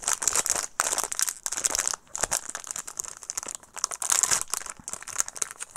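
Plastic wrapper of a Topps baseball card jumbo pack crinkling and crackling as it is handled and opened, a dense run of irregular sharp crackles.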